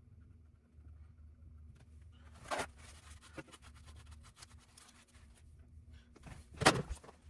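Small clicks and light handling noises of hard parts being worked on, with two louder clacks about two and a half seconds and six and a half seconds in, over a low steady hum.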